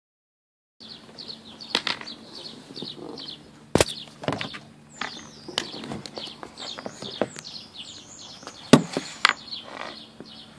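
Small birds chirping in quick, repeated high notes, then wavy whistled glides, with several sharp knocks, two of them standing out.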